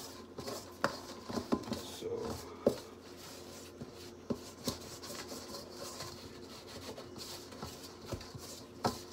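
Wooden spoon stirring and scraping flour and dough in a stainless steel mixing bowl: a soft rubbing, with scattered knocks of the spoon against the metal.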